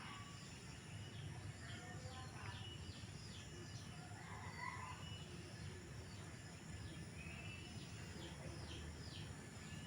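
Small birds chirping in runs of short, quick descending notes, over a steady low background hum.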